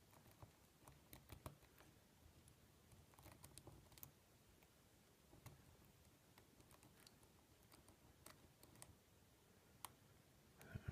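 Faint, irregular ticks and light scrapes of a hook pick probing the pin stacks of a Euro Starlet lock cylinder held under tension during single-pin picking.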